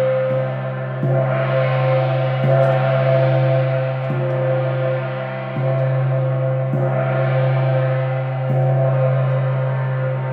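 Moon gong ringing continuously with a deep hum and a brighter overtone, struck softly about every second and a half to keep it sounding, its shimmer swelling twice.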